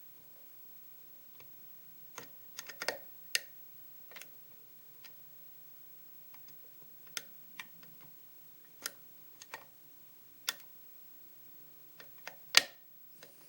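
Lock pick and tension wrench working the pins of a pin-tumbler challenge lock: scattered small clicks and ticks at an irregular pace, with a sharper click a little before the end as a pin sets at the shear line (called a click from pin 2).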